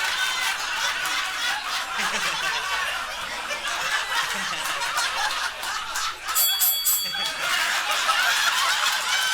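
Live audience laughing hard in response to a roast joke, a sustained wash of many voices. About two-thirds of the way through there is a brief shrill, high-pitched sound.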